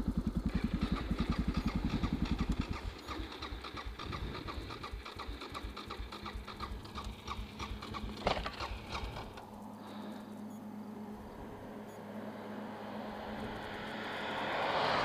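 Suzuki DR650 single-cylinder engine running with a fast, even beat that cuts off about three seconds in, followed by a lighter rapid mechanical rhythm and a sharp click about eight seconds in. A car approaches and swells up near the end.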